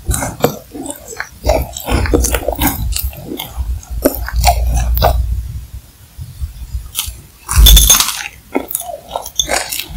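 Close-miked chewing of a mouthful of macaron: many small crackles of the meringue shell and filling being worked in the mouth. Near the end comes one loud crunching bite into a fresh macaron.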